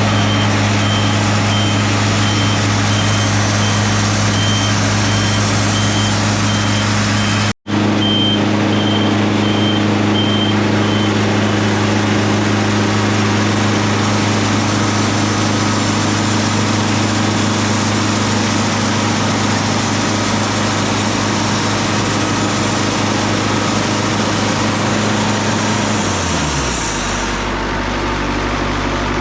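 Diesel engine of a piece of heavy equipment running steadily, with a backup alarm beeping regularly for the first ten seconds or so. Near the end the engine slows, its pitch dropping, and it settles into a lower, quieter run.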